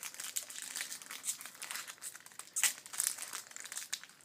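Foil wrapper of a 2014 Bowman Chrome baseball card pack being torn open and handled, crinkling in quick, irregular crackles that are loudest about two and a half to three seconds in.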